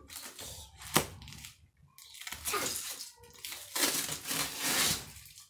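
Packaging and fabric rustling and crinkling as a garment is handled and unwrapped, with a sharp click about a second in; the rustling grows louder and denser in the second half.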